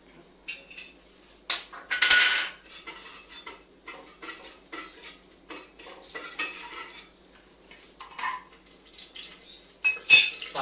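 A metal spoon clinking and scraping against the inside of a steel pressure cooker pot while stirring. A loud ringing clink comes about two seconds in, and another just before the end.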